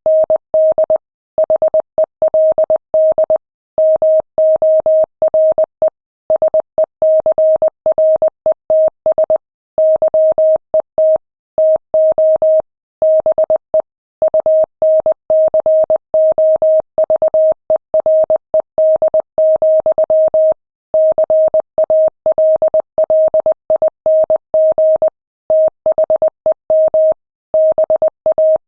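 Morse code sent at 20 words per minute: a single steady mid-pitched tone keyed on and off in short and long marks, with longer gaps between letters and words.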